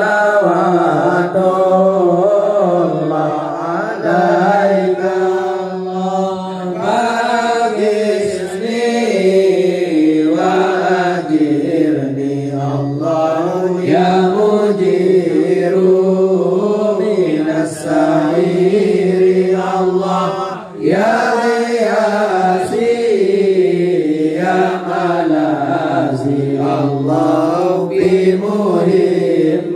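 A group of men chanting serakalan, Arabic devotional praise of the Prophet (sholawat), together. A wavering melody rises and falls over a steady lower held note.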